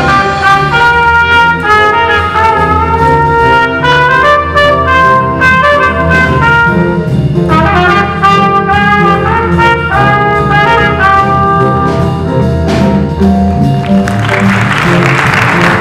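A middle-school jazz big band playing live: the horn section plays ensemble lines over piano, bass and drum kit. Near the end the horn lines thin out under a loud, hissing, noisy wash.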